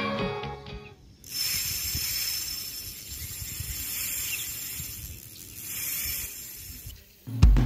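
Guitar music fading out within the first second, followed by a steady hiss that swells and eases a few times and cuts off near the end.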